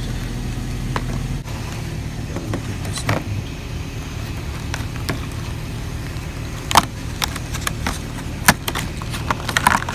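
Sharp plastic clicks as a rear wiper blade is worked and popped off its wiper arm, a handful of times, over a steady low hum.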